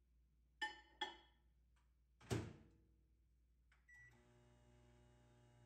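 Cuckoo microwave oven being loaded and started: two short clinks as a dish is set inside, the door shut with a thump a little after two seconds, a short beep, then the oven's steady running hum for the last couple of seconds.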